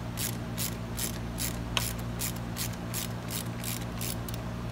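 Quarter-inch hand ratchet with a 10 mm socket clicking as it loosens the seat-belt anchor bolt on a car seat: a steady run of pawl clicks, about three to four a second, with a low hum underneath.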